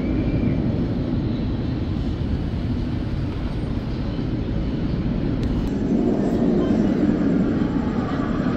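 Steady low rumble of the Big Apple Coaster's train running on its steel track, swelling slightly about six seconds in.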